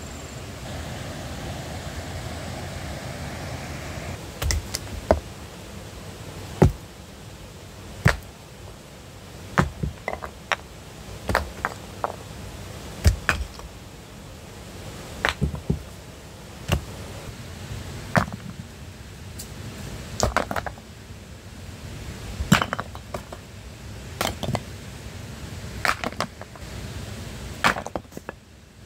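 Irregular sharp strikes of a tool on wood, like chopping or hacking, coming every second or two and sometimes in quick pairs or triples, beginning about four seconds in after a stretch of rustling.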